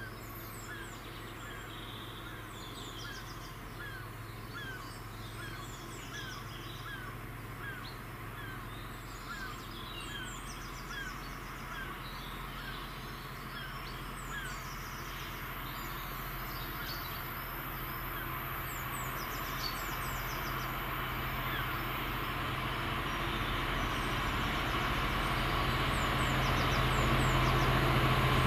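Birds calling, one repeating a short falling note every second or so, over the low drone of a diesel freight locomotive that grows steadily louder as it approaches.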